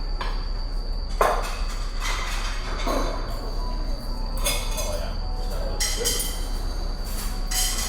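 Cutlery and dishes clinking and knocking now and then, about half a dozen times, over a steady low hum and a faint high whine.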